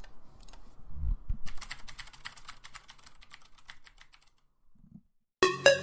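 Intro sound effect of rapid keyboard typing clicks running for about three seconds, after a low thud about a second in. Electronic music with a steady beat starts just before the end.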